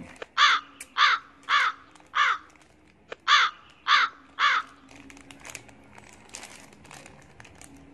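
A crow cawing: four harsh caws about half a second apart, a short pause, then three more.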